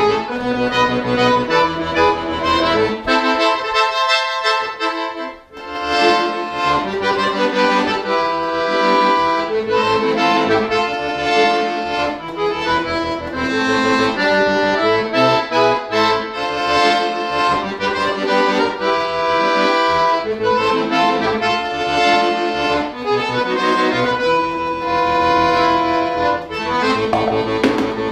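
Chromatic button accordion played solo, with a fast run of notes over bass chords. The bass drops out for a couple of seconds about three seconds in, and there is a short break just before six seconds, after which the full sound returns.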